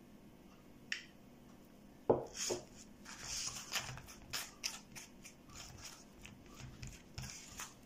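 A knock about two seconds in, then a spoon scraping in repeated short strokes as tomato tapenade is spread over a puff-pastry tart base lined with baking paper.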